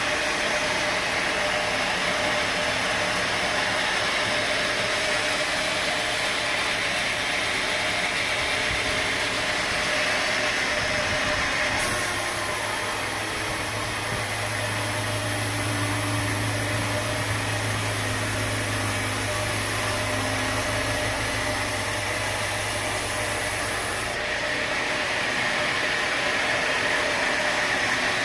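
Sawmill machinery running with a steady mechanical hum and hiss. About twelve seconds in the sound switches abruptly to a deeper hum with more hiss, and switches back just as suddenly about twenty-four seconds in.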